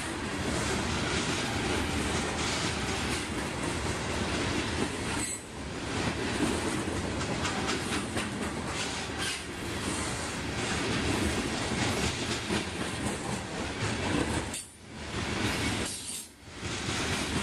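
Freight train cars rolling past close by: a steady rumble and clatter of steel wheels on the rails, with rhythmic clacking over the rail joints. The noise dips briefly a few times, twice close together near the end.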